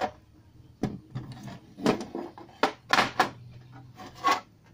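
Irregular plastic knocks and clatters from a stereo's plastic front panel being handled and shifted on a workbench, about half a dozen sharp knocks, with a faint steady hum underneath.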